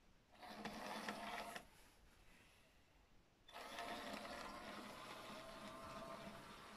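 OO gauge model Class 06 diesel shunter's small electric motor and gears whirring as it runs along the track, in two spells: a short one about half a second in, and a longer one from about halfway that fades toward the end.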